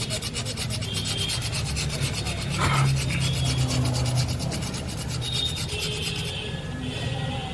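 Rapid, even rasping strokes, about nine a second, typical of a hardened motorcycle brake shoe lining being scraped or filed rough. A steady low hum runs underneath.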